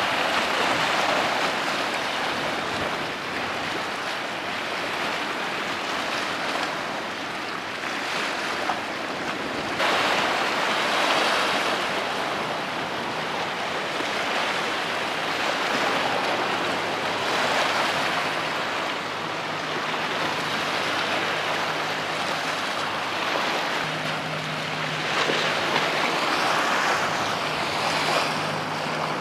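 Rushing, splashing water from a fast Aso-class patrol vessel's bow wave and wake, swelling and easing several times, with wind on the microphone. A low steady engine hum from the passing ship comes in about halfway and grows louder near the end.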